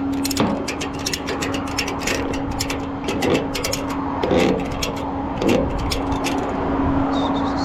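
Tow truck running with a steady hum, with sharp irregular clicks and a few duller knocks over it, and a brief high chirp near the end.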